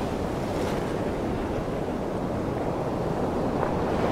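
Ocean surf washing through shallow foam: a steady rushing hiss of broken water.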